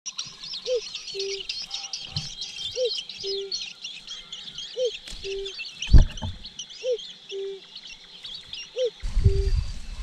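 Many birds chirping rapidly and high-pitched, with a low two-note hooting call repeated about every two seconds. A single loud thump comes about six seconds in, and a low rumble of noise starts near the end.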